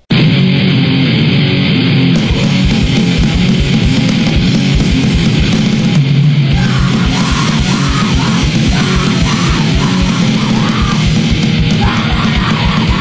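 Loud heavy rock music cutting in abruptly, with distorted guitar over rapid bass-drum hits.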